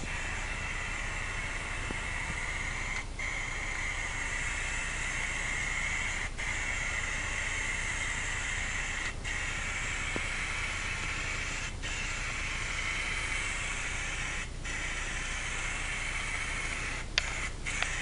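Aerosol spray-paint can fired through a trigger handle, hissing steadily in long passes with a brief break about every three seconds as the trigger is let go between strokes. A few sharp clicks near the end.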